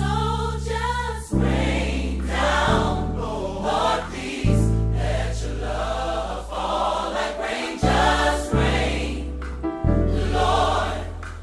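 Gospel music: a choir singing over a deep bass line that changes note every second or two.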